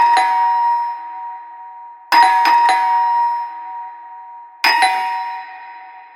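Doorbell chime rung over and over, about every two and a half seconds. Each ring is a quick run of two or three struck notes that ring on and fade away.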